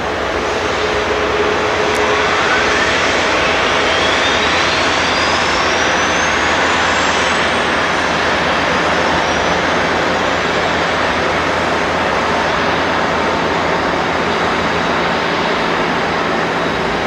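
Jet engine of a Boeing 777-200ER spooling up during engine start on pushback: a steady rushing noise with a whine that climbs in pitch over several seconds, and a second rising whine joining about halfway through.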